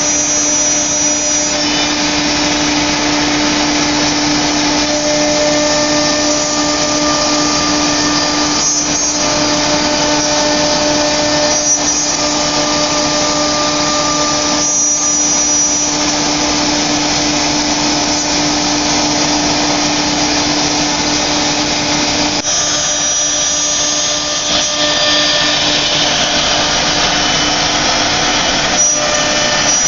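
Philicam four-spindle ATC CNC router cutting a wood panel, its spindle running steadily under the whoosh of the dust-extraction hoods. A steady hum in the machine noise drops away about two-thirds of the way through.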